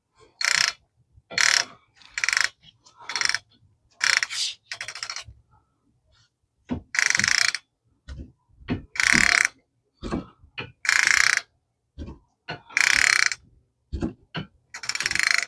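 Hand socket ratchet clicking as a brake assembly bolt is tightened down, in repeated strokes: about one a second at first, then slower, longer strokes about every two seconds.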